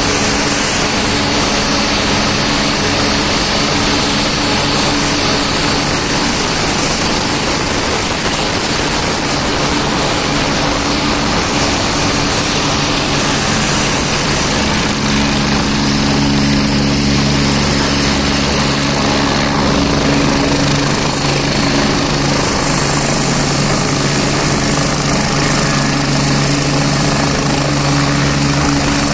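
AgustaWestland AW109 Grand New helicopter running on the ground with its main rotor turning as it taxis: a steady turbine whine over rotor and engine noise, with a lower drone growing stronger about halfway through.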